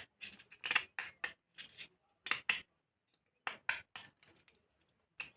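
A small metal tool scraping and clicking against a speaker driver's magnet assembly in short irregular strokes, clearing off old glue so that new adhesive will hold.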